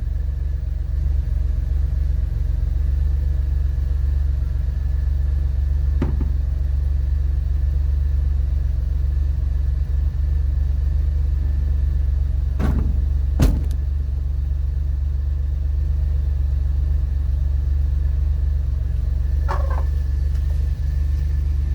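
1990 Buick LeSabre's 3.8-litre V6 running, a steady low rumble with a faint steady high whine over it, and a few brief clicks or knocks.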